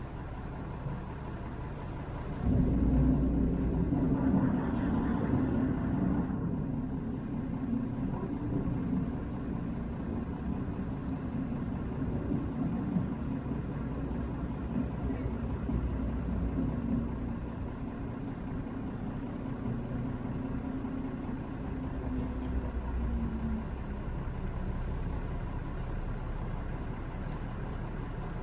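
Tour boat's engine running with a steady low rumble. About two and a half seconds in it suddenly gets louder, with a steady low hum that fades out again a little before the end.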